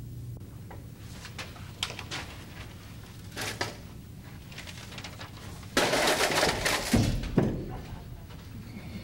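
A few light knocks, then a loud rustling clatter lasting about a second and a half, ending in two heavy thumps: things falling to the floor in a hallway collision.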